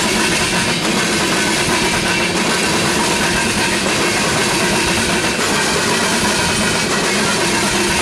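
Freight train of ethanol tank cars rolling past: a steady noise of steel wheels running on the rails.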